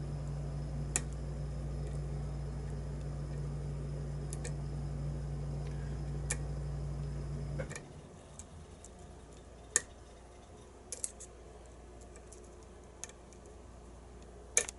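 Sparse, irregular small clicks and ticks of a lock pick working the pins of a challenge lock under tension. A steady low hum runs under them and cuts off suddenly about eight seconds in.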